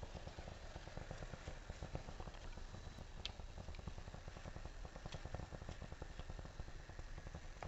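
A pot of water at a rolling boil, bubbling and rumbling steadily, with a few light clicks of metal tongs against the pot as mustard greens are pushed into the water.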